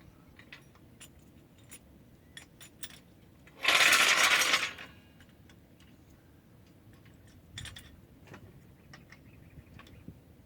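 Light metallic clicks and clinks of metal tools and parts being handled, with one loud clattering rattle lasting about a second near the middle and a shorter, quieter one later.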